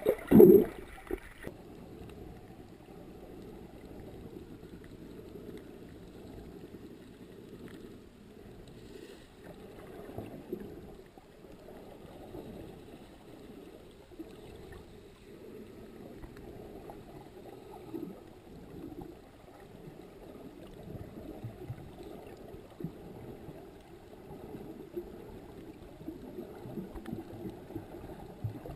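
Muffled underwater noise picked up through a camera's underwater housing: a steady low water rush with scattered soft bumps. There is one loud knock about half a second in.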